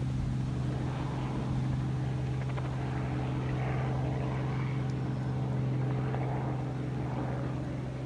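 Helicopter running with a steady low hum.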